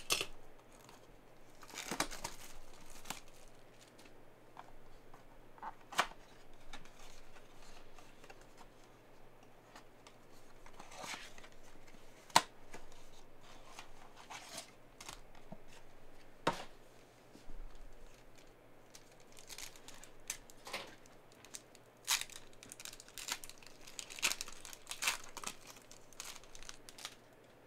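Hands opening a cardboard trading-card box and its foil card pack: scattered clicks, scrapes and rustles of cardboard and wrapper. Near the end comes a denser run of foil crinkling and tearing as a pack is ripped open.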